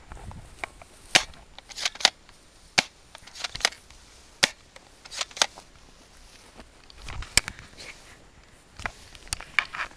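Airsoft guns firing single shots: about ten sharp snapping cracks at irregular intervals, some coming in quick pairs.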